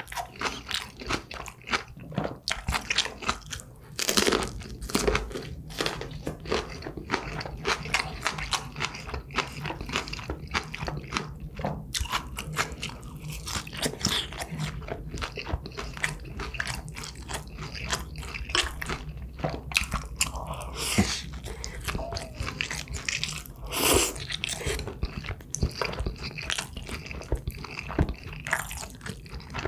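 A person chewing and biting food close to the microphone: continuous crunching and wet chewing clicks, with two louder crunching bites, about four seconds in and again near twenty-four seconds.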